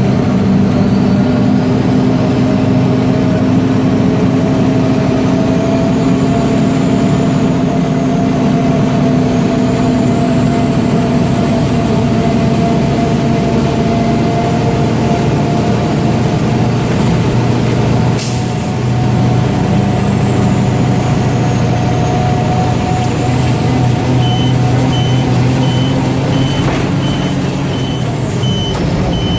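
Diesel engine of an old Mack DM690 concrete mixer truck running steadily, its pitch drifting a little, with one sudden sharp burst about two thirds through. Near the end a reversing alarm starts beeping, about two beeps a second.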